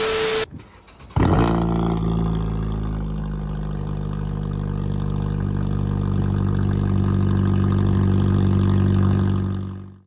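Emergency Alert System broadcast: the tail of a digital header data burst ends half a second in, then from about a second in a loud, steady, low buzzing alert tone of several pitches held together sounds for about nine seconds and cuts off just before the end.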